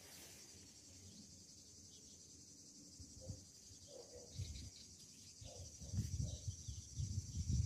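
Steady high-pitched chorus of insects trilling in the background. Low rumbling buffeting on the microphone builds from about halfway through and is the loudest sound by the end.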